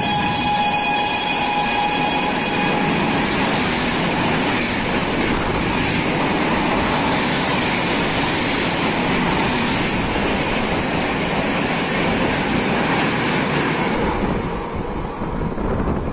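Padatik Superfast Express passing through a station at speed. The tail of its horn fades out in the first couple of seconds, then comes the steady rush of its wheels and coaches going by. The noise drops away about two seconds before the end as the last coach clears.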